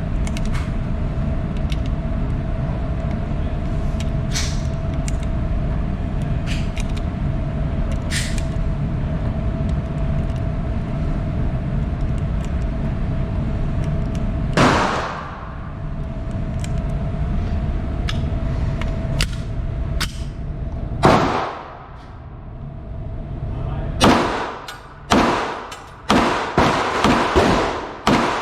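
9mm pistol shots: two single shots several seconds apart, then a quick string of about seven shots near the end. A steady low rumble with a held hum runs under the first two-thirds, and fainter sharp cracks come early on.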